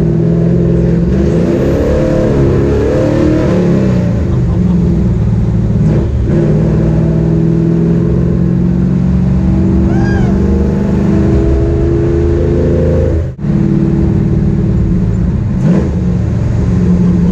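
Cam'd LS1 V8 of an ex-NASCAR Craftsman Series truck, heard from inside the bare, roll-caged cab, revving up as the truck accelerates about a second in, then pulling steadily along the road. The sound cuts out for an instant near the end.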